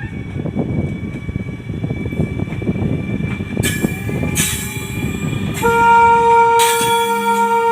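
A WAG-12B electric freight locomotive and its train running with a heavy rumble. After a couple of short hisses, its horn sounds about three-quarters of the way in: one loud, steady blast held on.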